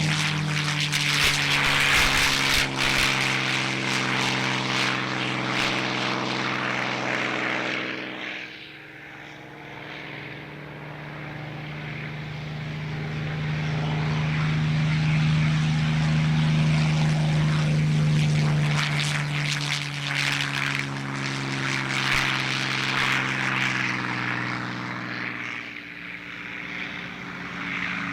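Rolls-Royce Merlin V12 engines of WWII propeller fighters droning steadily in flight. The sound fades about a third of the way in, builds to its loudest as they pass, then falls away again near the end.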